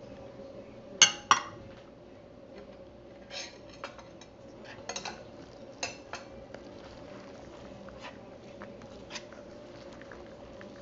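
Metal utensil knocking and clicking against a plastic mixing bowl while chopped vegetables are stirred: two sharp knocks about a second in, then scattered lighter clicks.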